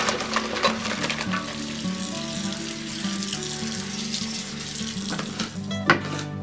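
Tap water running over sliced potatoes in a stainless-steel colander as they are rinsed, with background music. Near the end a kitchen knife chops onion on a plastic cutting board.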